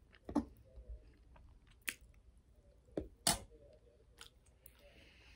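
Close-up mouth sounds of a person eating soft macaroni and cheese: chewing with wet, squishy smacks and several sharp clicks, the loudest near the start and about three seconds in.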